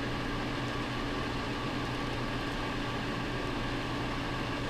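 Steady background hum and hiss with a few constant tones, unchanging throughout.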